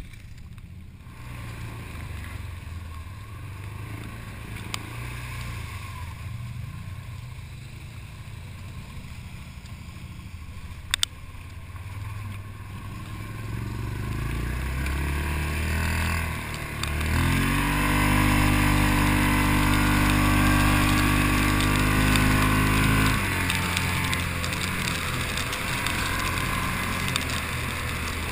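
Off-road quad engine running at low revs, then rising and held at high revs for about six seconds before dropping back. A single sharp knock sounds about eleven seconds in.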